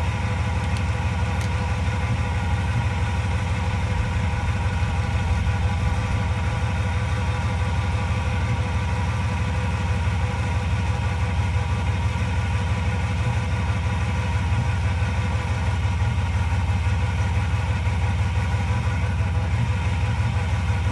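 A pickup truck's engine idling steadily, the running truck in a jump-start hookup with jumper cables.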